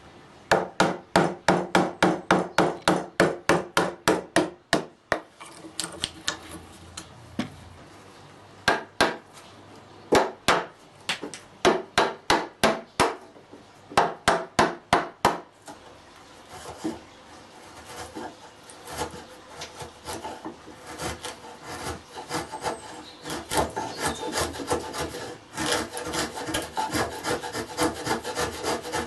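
Hand tool working wood in quick, regular strokes, about three a second, in two runs with a pause between, then denser continuous stroking in the second half: hand-cutting a wooden lap joint.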